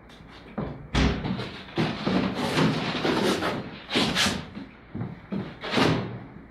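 A wooden door bangs about a second in, followed by a run of loud thuds and scuffs.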